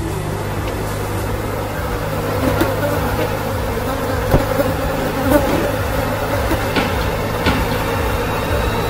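A fly buzzing loudly and steadily, with a few short knocks over it.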